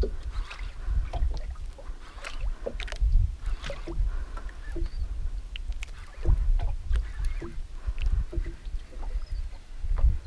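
Water lapping and splashing against the hull of a small outrigger boat, over a low uneven rumble, with scattered short splashes and knocks.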